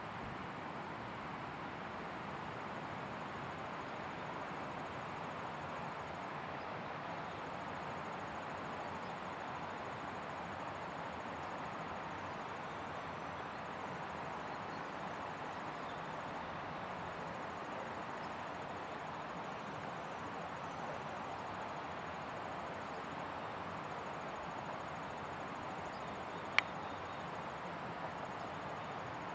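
Steady outdoor background hiss with a faint, high, even insect buzz over it, and one sharp click near the end.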